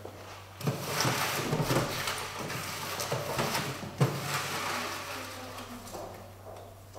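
Folded paper slips rustling as a hand stirs them inside a glass draw box, starting about half a second in and dying away near the end. A sharp knock comes about four seconds in.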